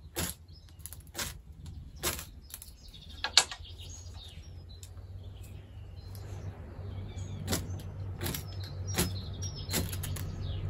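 Ferro rod on a survival necklace struck with its small striker to throw sparks onto a cotton-and-wax fire starter: about eight quick, sharp scrapes, four in the first few seconds and four more from about seven and a half seconds in. A low steady hum grows underneath in the second half.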